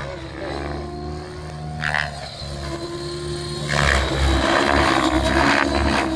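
Align T-Rex 700E electric radio-controlled helicopter in flight: a steady hum and whine from its rotor and motor, growing clearly louder a little over halfway through as it passes low and close.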